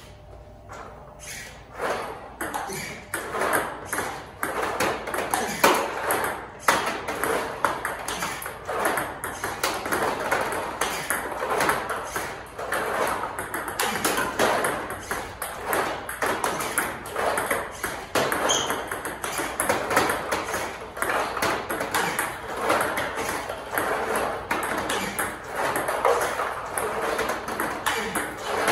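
Table tennis rally against a ball-feeding robot: a fast, steady run of sharp ball clicks, the robot launching balls, balls bouncing on the table and being struck with the paddle, several a second, starting about two seconds in. The drill is the player attacking the robot's backspin balls.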